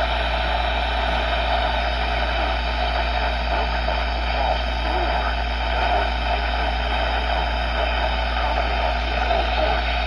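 Weather alert radio receiving a NOAA Weather Radio broadcast through heavy, steady static hiss over a constant low hum.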